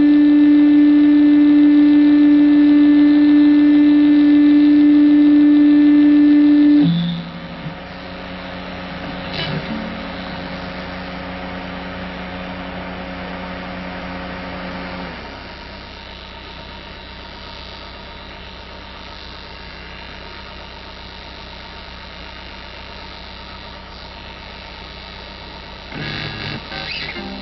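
Electric guitar left feeding back through its amplifier: a loud steady held tone that cuts off about seven seconds in, a quieter lower tone that lingers until about halfway, then a steady amplifier hum. A short rattle of handling noise comes near the end.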